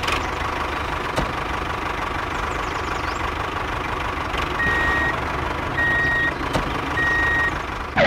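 Tractor engine running steadily, with three short reversing beeps about a second apart in the second half, the alarm of a vehicle backing up.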